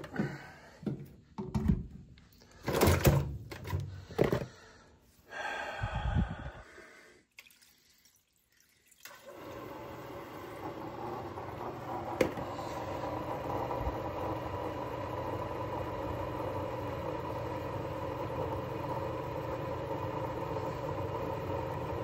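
Knocks and rattles as a condensate pump is handled, then after a short lull the pump's motor starts about nine seconds in and runs steadily with a hum, pumping water out.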